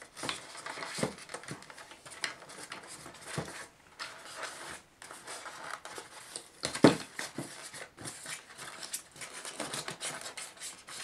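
Handling noise as a Hornby AC mains adapter and its cable are pushed back into a white foam packaging tray: irregular scrapes, rustles and light taps, with one louder knock about seven seconds in.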